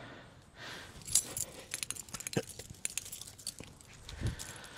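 Light metallic clicking and jingling, like small metal objects shaken together, as a person gets up, with a dull thump about four seconds in.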